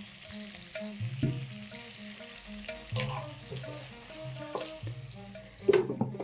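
Stuffed small brinjals sizzling in hot oil in a kadai, just sprinkled with water, as a wooden spatula stirs them with a few knocks against the pan. Near the end, a loud clatter as a glass lid is set on the pan.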